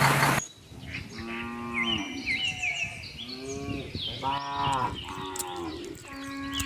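Cattle mooing several times in long, drawn-out calls, with birds chirping over them. A short burst of hiss opens the passage and is the loudest sound in it.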